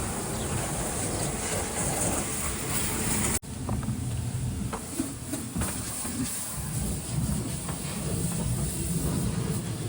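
Water jet hissing against the excavator as it is washed, with a motor running low underneath. The sound cuts off abruptly for an instant about a third of the way in, then carries on with small scattered spatters.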